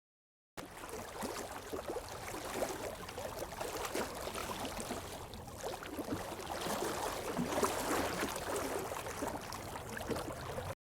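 Moving water splashing and gurgling, with many small irregular spatters. It begins after a brief dead silence and cuts off abruptly just before the end.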